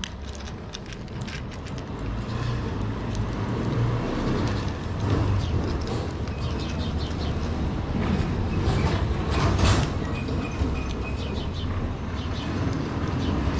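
Low engine rumble from an unseen motor vehicle close by, building over the first few seconds and then running on steadily. Light crunching clicks of cats chewing dry kibble come through over it.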